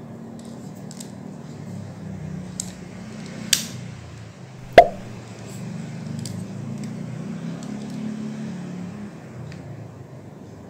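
Handling noise from a Soligor 300mm telephoto lens being picked up and turned in the hands: a few light clicks and taps, with two sharper knocks about three and a half and five seconds in, the second the loudest. A low steady hum runs underneath.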